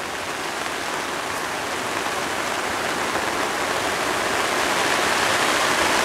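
Heavy rain pouring down, an even hiss that slowly grows louder over the seconds.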